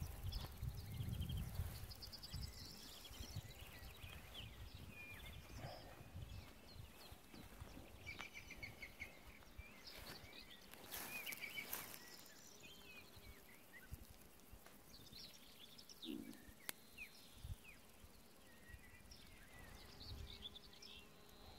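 Faint outdoor ambience with scattered high chirps and trills of small birds. Wind rumbles on the microphone in the first couple of seconds.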